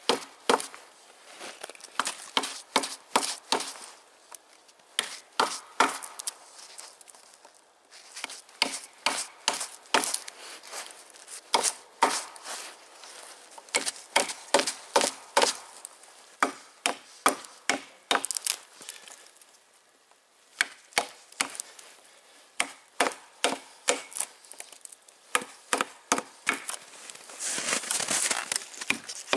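Mora carbon-steel knife chopping into a piece of wood: sharp wooden strikes in quick runs of about two or three a second, with short pauses between runs and a longer rasping stretch near the end.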